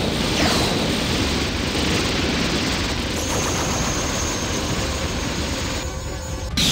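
Cartoon energy-beam battle sound effects: a loud, dense, continuous blasting roar as two beams clash. It has a couple of falling whistles near the start and a thin high tone in the middle.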